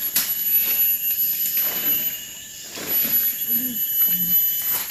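Dry leaves rustling and crackling as a smoking leaf fire is stirred with a stick, in uneven surges with a few sharp snaps, over a steady high-pitched whine. A voice murmurs briefly near the end.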